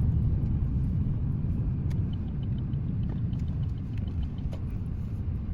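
Low steady rumble of a car's engine and road noise while driving.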